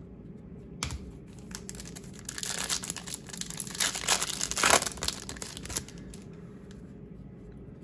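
Wrapper of a baseball card pack being torn open and crinkled in the hands: a dense crackling from about a second in that grows loudest around the fifth second and stops about six seconds in.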